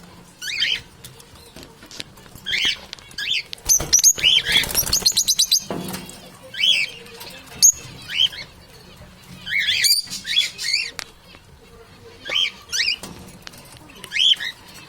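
Birds chirping in short, repeated high calls every second or two, with a rapid run of clicks lasting about a second, around four seconds in.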